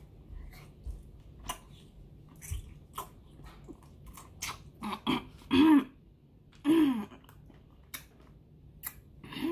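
A person crunching and chewing a pickle, with a string of short crisp bites. About five and a half seconds in she clears her throat twice, against the burn of the spicy ranch seasoning.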